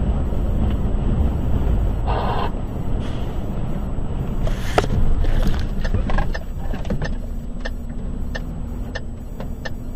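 Truck's engine and road noise heard from inside the cab, with a short pitched tone about two seconds in and a sharp bang near the middle, followed by a scatter of small ticks and knocks as dust fills the road ahead.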